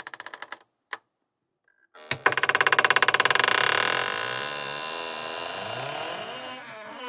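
Old wooden armoire door creaking on its hinges: a short rapid creak that stops, then a single knock. After about a second of silence comes a click and a long, slow creak made of fast ticks with a wavering pitch.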